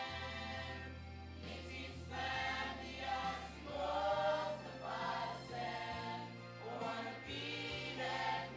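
Background music: a choir singing phrase by phrase over held low bass notes.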